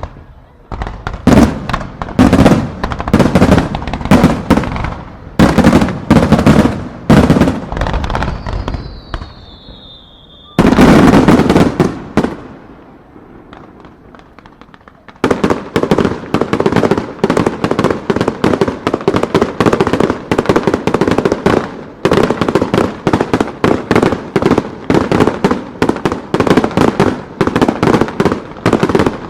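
Aerial fireworks shells bursting with loud bangs, one after another. A falling whistle sounds about 8 s in. After a lull of a few seconds, a rapid barrage of bursts follows at several bangs a second.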